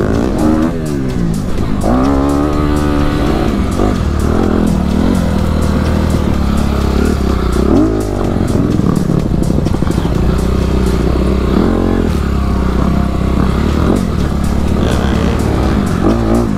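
Dirt bike engine revving up and down while riding a dirt trail, its pitch rising and falling with the throttle several times. Music plays underneath.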